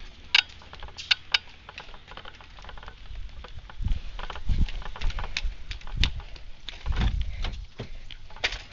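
Footsteps and handling noise from a handheld camera carried at a walk: scattered sharp clicks, with a few dull low thumps about four, six and seven seconds in.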